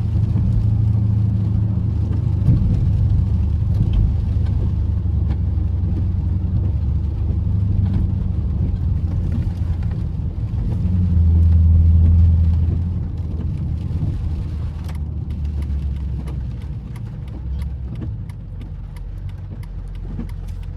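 Chrysler 300 SRT's 6.4-litre Hemi V8 heard from inside the cabin while driving. The low engine rumble swells under acceleration about eleven seconds in, then eases off, with light clicking through the last few seconds.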